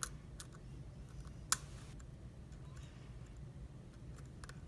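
Lock pick tapping and scraping the pins of a Carl F euro cylinder during single-pin picking: a few sparse small metallic clicks, the loudest about one and a half seconds in.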